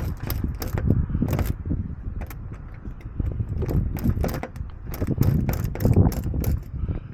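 Irregular metallic clicks and rattles of a locksmith's tools working a lock, over a low steady rumble.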